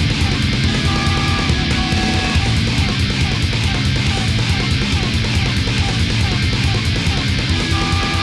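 Hardcore punk backing music: fast, steady drums with distorted electric guitar and bass, all software instruments.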